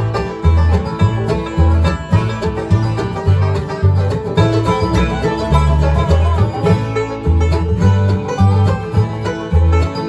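A bluegrass band playing, with banjo picking and guitar over steady, evenly repeating bass notes.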